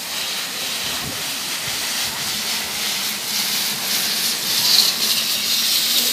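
Steady hiss of water streams pouring off the tiers of a tiered roof and splashing below, briefly louder about three-quarters of the way through.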